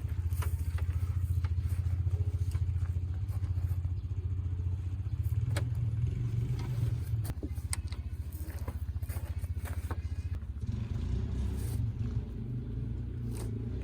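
Car engine idling: a steady low hum with an even pulse, shifting slightly about three quarters of the way through, with a few light clicks and knocks over it.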